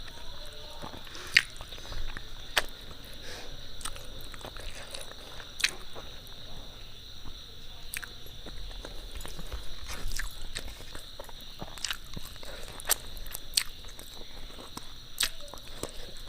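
Close-up chewing and eating sounds from a meal of rice and fish curry, with scattered sharp mouth clicks and smacks every second or so over a faint steady hiss.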